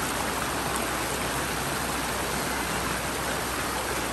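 Shallow rocky mountain stream rushing over rocks and small rapids: a steady, even rush of water.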